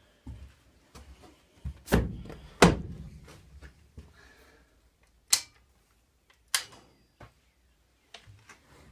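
A string of sharp metal clunks and knocks from a locomotive cab's door and control-panel fittings being handled, the loudest pair about two seconds in. There is near silence between them, with no engine running.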